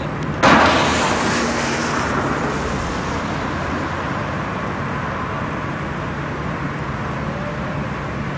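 Steady street noise at a tram stop on a wet road, with a sudden loud rush about half a second in that fades away over a couple of seconds.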